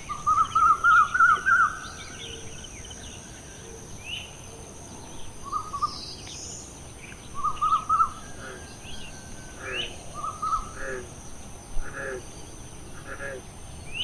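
Birds calling: one bird gives quick runs of rapid chirps, loudest in the first two seconds, while other birds chirp sparsely. A steady high whine runs underneath.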